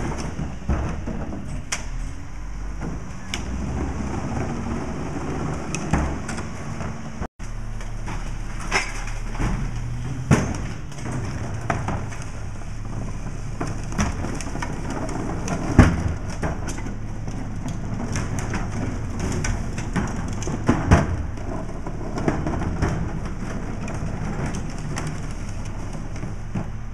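Rear-loader garbage truck's diesel engine idling steadily, with scattered clanks and thuds from trash carts and bags being tipped into the hopper.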